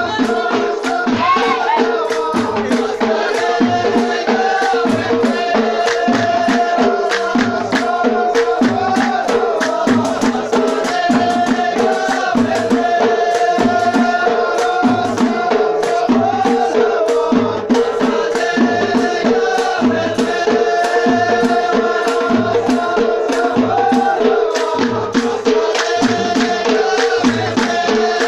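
Folk music: voices singing over hand drums and rattling percussion that keep a steady beat.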